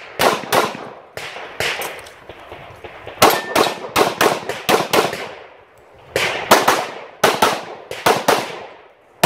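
Pistol fired in fast strings, several shots a second, with short breaks about two seconds in and near the six-second mark.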